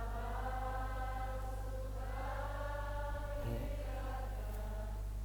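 A congregation softly singing a slow worship song, long held notes changing about every two seconds, over a steady low electrical hum.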